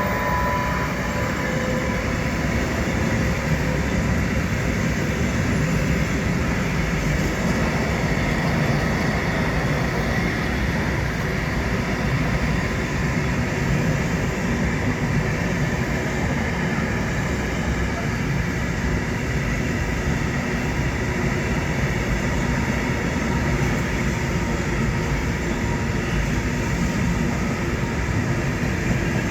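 Intermodal container freight train passing: a steady, unbroken noise of the wagons' wheels running on the rails. A thin high tone fades out about a second in.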